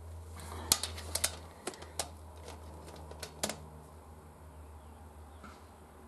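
A few sharp, irregular metallic clicks and clinks, bunched in the first three and a half seconds, as a torque wrench is handled and fitted onto a valve adjuster locknut on a Honda Transalp's cylinder head. A steady low hum runs underneath.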